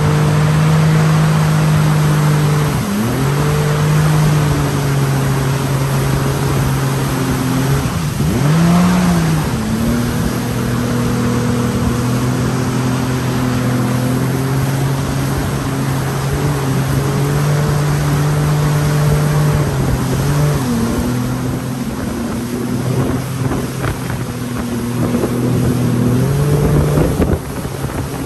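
Jet ski engine running at a steady cruising pitch over a rush of wind and water. The engine note dips and comes back up a few times as the throttle is eased and reopened.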